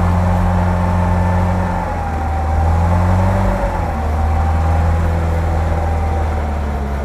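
A vehicle winch pulling a UAZ 4x4 forward on its cable: the winch motor whines steadily, its pitch wavering slightly, over the engine's steady low running. The whine fades near the end.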